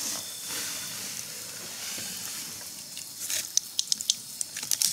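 Food sizzling as it fries: a steady hiss, with a run of sharp crackles and pops over the last two seconds.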